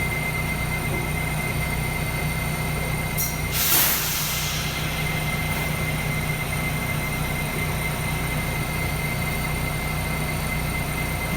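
New York City Subway R188 train running under way: a steady low rumble with a steady high tone over it. A brief hiss comes about four seconds in.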